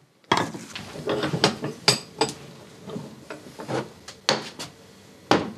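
Knocks, clicks and scrapes of a Kenwood Chef A701A food mixer's aluminium die-cast gearbox assembly being handled and set down on a wooden workbench, irregular, with a few sharper clunks.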